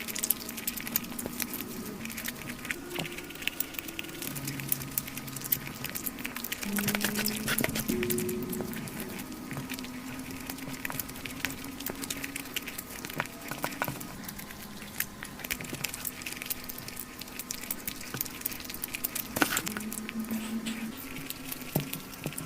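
Crunching and clicking of fried chicken pieces being bitten and chewed fast, in many irregular sharp clicks, over background music of held notes that shift in pitch.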